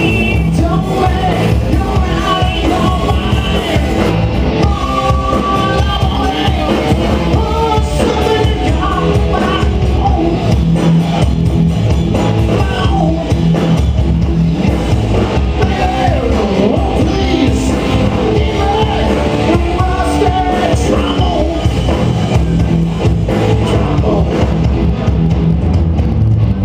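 Live rock band playing loudly: electric guitars, bass and a drum kit, with a singer's voice on top.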